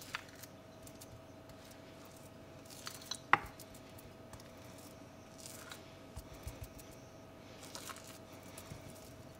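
A spoon scooping a wet, syrupy spice rub out of a glass bowl and dropping it onto raw pork ribs in a glass baking dish: soft scrapes and small clinks against the glass, with one sharp clink about three seconds in. A faint steady hum runs underneath.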